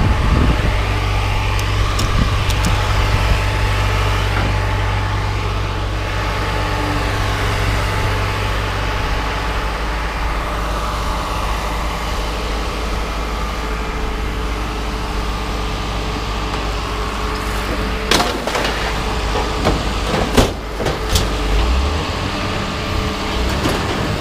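Heavy engine running steadily while scrap metal is unloaded, with a few sharp metal knocks and clanks about 18 and 20 seconds in.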